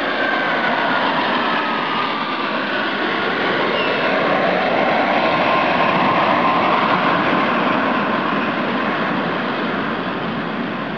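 Jet engines of a Boeing 757 airliner on final approach, a loud, steady rushing roar with a faint whine that slowly falls in pitch as the plane passes and moves away.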